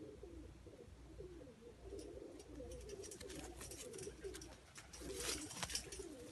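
Domestic pigeons cooing: low, warbling coos that run on without a break. From about two seconds in there are brief scratchy rustles and clicks, most of them near the end.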